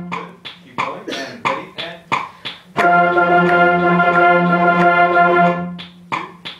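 School concert band playing: a string of short, detached notes, then one note held for about three seconds, then short notes again.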